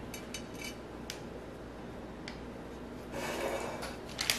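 Faint handling sounds of hands setting a rolled tortilla burrito into a glass baking dish: a few light taps and clicks, a soft rustle about three seconds in, and a sharper tick near the end.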